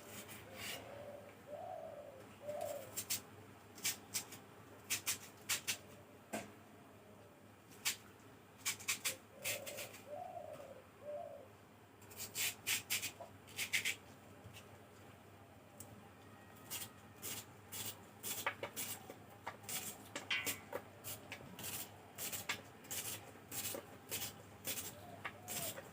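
A dove or pigeon cooing, two short phrases about a couple of seconds in and again about ten seconds in, against frequent sharp clicks and knocks of kitchen work.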